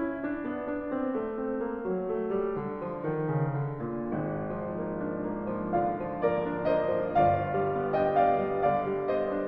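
Piano music: a slow run of sustained notes and chords.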